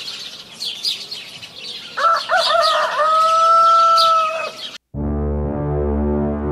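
A rooster crowing once, a long held call, over small birds chirping. Just before five seconds in it cuts off abruptly and music with a steady low bass begins.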